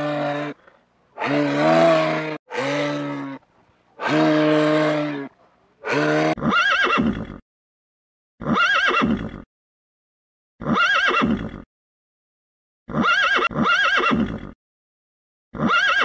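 A few low, drawn-out animal calls, then from about six seconds in a horse whinnying again and again: six short whinnies roughly two seconds apart, their pitch rising and falling.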